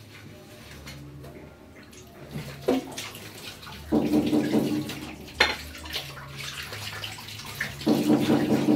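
Water from a kitchen tap splashing into a sink while plates are washed, in two spells, the second starting near the end, with a few sharp clinks of crockery.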